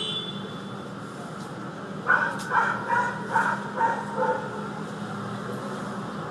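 A dog barking about six times in quick succession, over a steady low hum of idling street vehicles.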